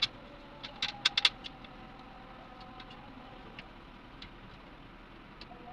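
Sharp metallic clicks, several close together about a second in and then scattered single ticks, from a hand tool working at the wiring of a dumper truck cab's electric motor. A faint steady whine runs underneath.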